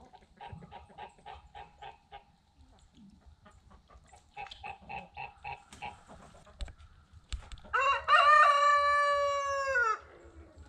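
Chickens clucking in quick runs of short notes, then a rooster crows once, a long call of about two seconds near the end, the loudest sound.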